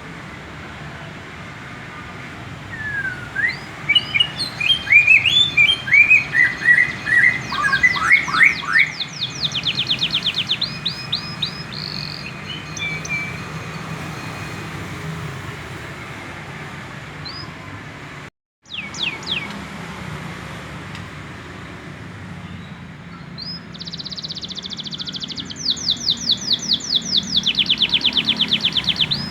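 Young domestic canary singing while still learning its song. It gives phrases of varied chirps and rapid high trills in two spells, the second ending in a long, fast, even trill. A low steady hum runs underneath.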